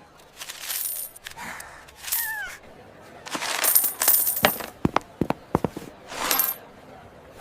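Coins jingling and clinking in several bursts with a high metallic ring, with a quick run of sharp clicks a little past the middle.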